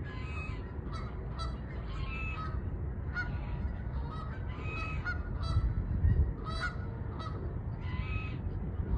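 A flock of geese honking: many short, overlapping calls, one after another, over a steady low rumble.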